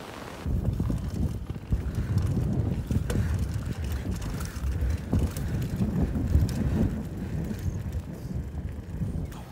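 Mountain bike riding over a bumpy dirt path: a low, uneven rumble of wind buffeting the microphone and tyres on dirt, with scattered knocks and rattles from the bike over bumps. The rumble picks up about half a second in.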